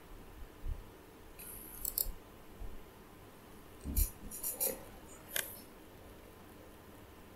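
A few faint sharp clicks and light clattering taps from a computer mouse being moved and clicked, over low room hiss. One click about four seconds in comes with a soft thump.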